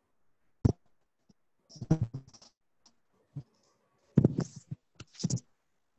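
Irregular clicks and scraping noises in three short clusters: a sharp click near the start, a burst around two seconds in, and a longer burst near the end, with dead silence between them.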